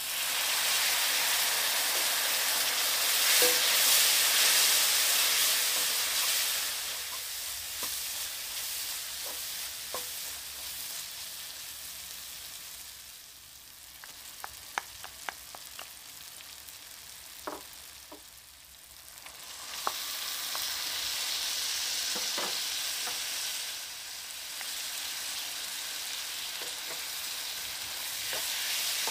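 Hot water hitting a hot wok of fried onions and spices, hissing and sizzling loudly at once, then dying down. Midway come several light clicks and taps of a wooden spoon on the pan and a small bowl, and the sizzling picks up again about twenty seconds in as the food is stirred.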